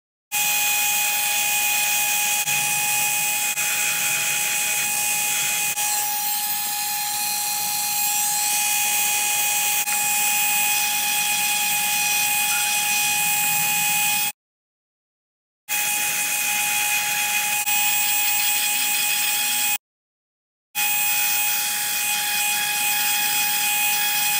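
Dremel rotary tool running at high speed with a steady high-pitched whine while its bit engraves a design into a small disc. The sound cuts out abruptly twice, for about a second each time.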